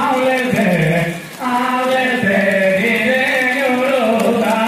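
A man's voice singing a slow, unaccompanied melody in long held notes, with a short break just over a second in.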